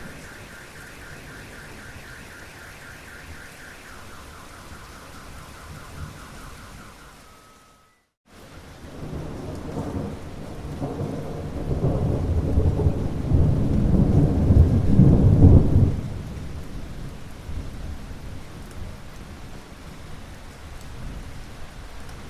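Steady rain, with a pulsing high tone for the first several seconds; after a brief break about a third of the way in, a long rolling thunder rumble builds and is loudest just past the middle, then fades back to steady rain.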